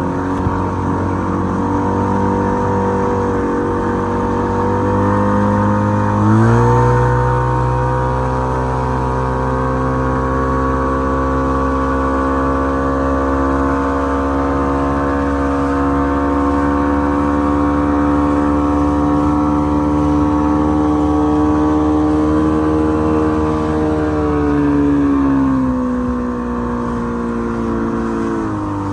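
A 2002 Johnson 50 hp two-stroke outboard running under way at speed, over the rush of its wake. About six seconds in, the engine note steps up in pitch and holds steady. Near the end it drops back down.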